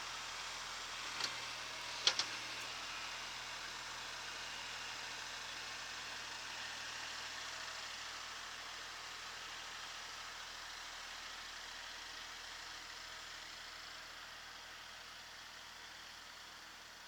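Kubota SL28H tractor engine running steadily, with a couple of short sharp clicks about a second and two seconds in, and the sound slowly getting quieter near the end.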